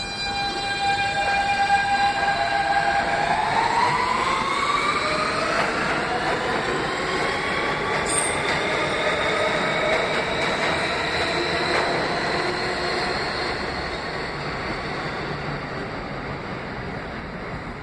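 R160B subway train with Siemens propulsion pulling out of the station. Its traction motors give a stack of steady tones that start climbing in pitch about three seconds in and keep rising slowly as the train picks up speed. The sound fades as the train moves away, with one sharp click partway through.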